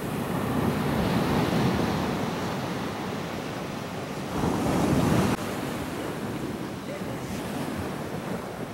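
Surf breaking and washing onto a sandy beach: a steady rush of noise that swells twice, the second swell cutting off abruptly about five seconds in.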